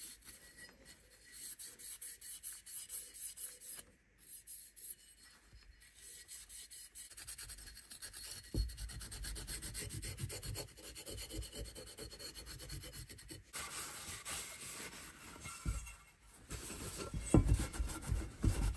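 A green abrasive scouring pad scrubbed quickly back and forth inside a BMW S38 oil pump's cast metal casing: a rapid, rasping rub. Toward the end a rag wipes the casing down, with a few low knocks as it is handled.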